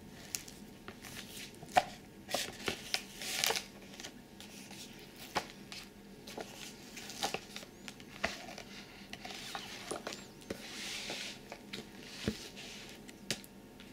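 Glossy magazines and a guidebook being handled and leafed through on a wooden tabletop: pages turning and rustling, with scattered light taps and slides of paper on the table.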